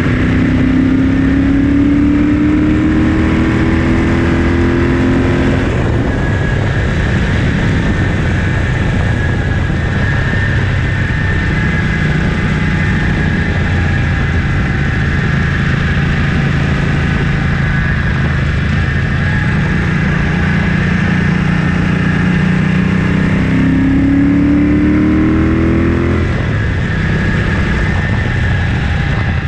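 1974 Ducati 750GT's air-cooled 90-degree V-twin running through a stainless Conti-replica exhaust under way. The engine pitch climbs under acceleration for about six seconds and drops abruptly, holds steady at cruise, then climbs again near the end and drops abruptly once more.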